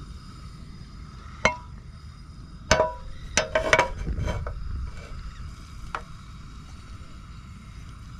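Frying pan and metal utensils knocking and clinking on a portable butane camp stove: a handful of sharp strikes, some with a short metallic ring, over a faint steady hiss.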